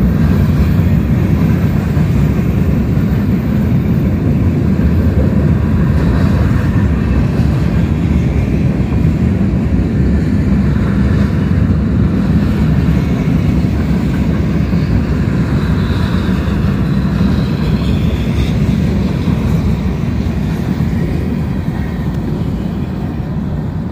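Freight train cars, covered hoppers and then centerbeam flatcars, rolling past close by: a loud, steady rumble of wheels on the rails that eases off a little near the end.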